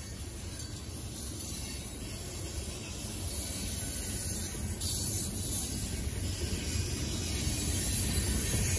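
Freight train of coal hopper cars rolling past, a steady low rumble of wheels on the rails that grows gradually louder.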